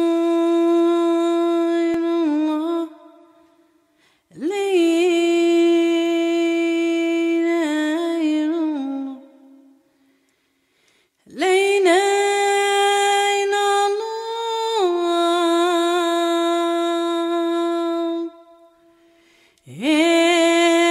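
Unaccompanied solo voice singing the opening of a Moroccan Sufi chant in long held notes, each phrase ending in a quick wavering ornament. Phrases are separated by short silences of a second or two.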